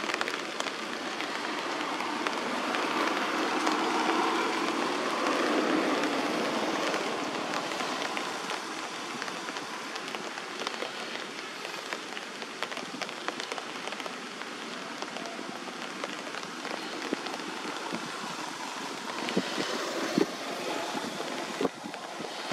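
Steady outdoor noise of road traffic, swelling as a vehicle passes about three to six seconds in, with a few soft knocks near the end.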